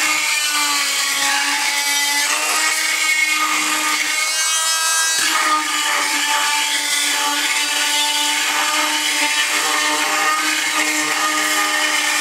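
Chicago Electric oscillating multi-tool with a carbide tile and masonry blade running steadily, its blade grinding at thick mortar around an old floor tile. A constant buzzing tone carries a rasping scrape over it.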